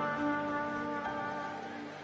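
Instrumental music: a sustained chord of held notes that slowly fades, with no singing.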